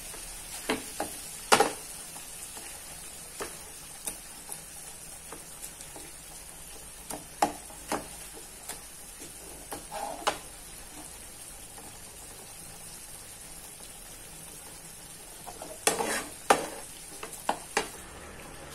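Pav bhaji sizzling in a hot flat pan while a metal potato masher mashes and scrapes through it, with scattered knocks of the masher against the pan. Near the end comes a burst of louder metal clatter.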